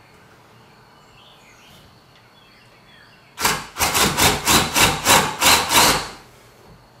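Cordless drill boring an angled pocket hole into the end of a wooden 2x4, a run of about ten quick pulses, about four a second, starting about three seconds in and lasting nearly three seconds.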